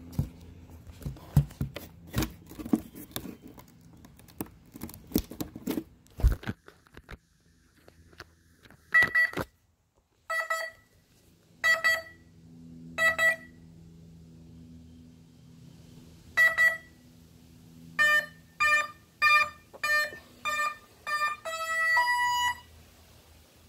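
Clicks and knocks of handling for the first six seconds. Then a model plane's electronic speed controller beeps through the brushless motor: four single beeps about a second and a half apart, one more, then six quick beeps and a closing two-note tone, a sequence typical of an ESC being armed or calibrated.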